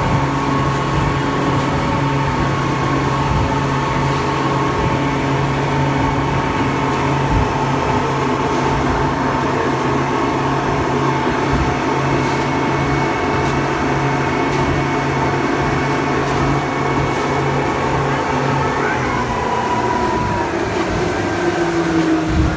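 Boat engine running with a steady drone. A few rising and falling tones come in over it near the end.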